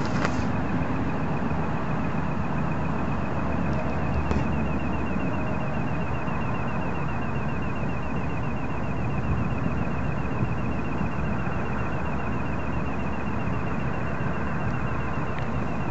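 An unidentified high-pitched pulsating tone, beating rapidly and evenly, over a steady low rumble.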